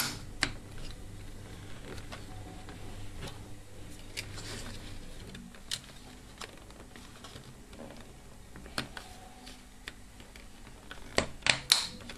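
Scattered small plastic clicks and taps from a DVD loader mechanism's snap-fit plastic parts being fitted and handled with a small screwdriver, over a faint steady low hum. About eleven seconds in comes a quick run of sharper, louder clicks.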